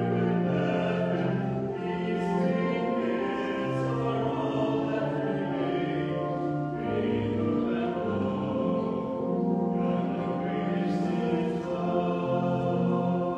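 Offertory hymn: a choir singing slow, sustained chords that change every second or two.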